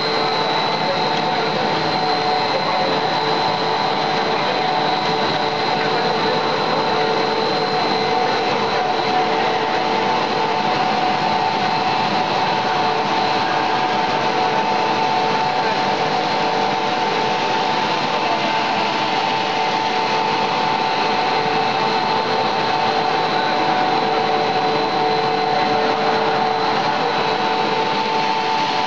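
Twin-screw plastic extruder pelletizing line running steadily: a constant machine din with several steady whining tones held throughout.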